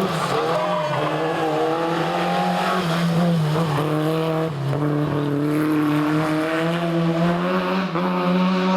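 Historic rally car's engine running hard on a special stage, one sustained high-revving note, with brief dips about halfway through and near the end.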